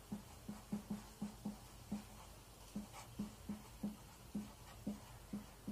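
Marker pen on a whiteboard: a quick, irregular run of soft taps and strokes, about three a second, as a diagram is drawn.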